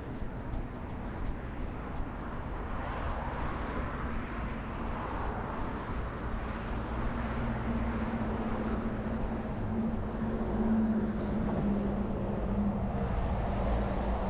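Road traffic going by, with the hum of a passing vehicle's engine growing louder in the second half over a steady low rumble.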